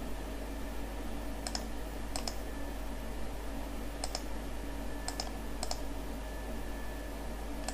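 Computer mouse button clicking about six times at uneven intervals, each click a quick pair of ticks, over a faint steady hum.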